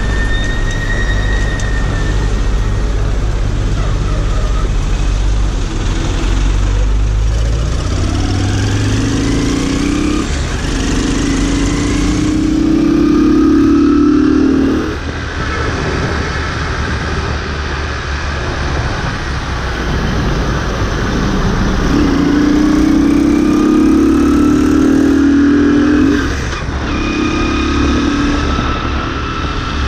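Motorcycle engine under way, its note climbing steadily as it accelerates and breaking off suddenly, twice in long runs and once more briefly near the end.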